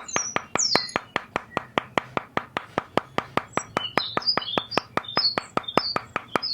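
Rapid, even tapping or clicking about six to seven times a second, with small birds chirping over it.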